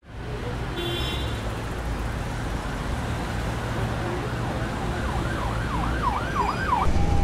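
An emergency vehicle's siren yelping in the distance: a fast rising-and-falling wail, about three sweeps a second, that comes up in the last two seconds over a steady low rumble and outdoor noise.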